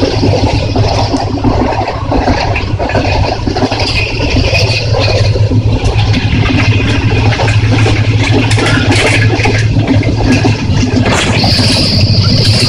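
Passenger train running, heard from inside the carriage: a loud, steady rumble with rattling. A steady high hiss joins near the end.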